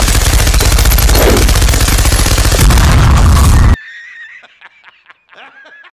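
Machine-gun sound effect firing rapidly and continuously, then cutting off abruptly, followed by a fainter laugh.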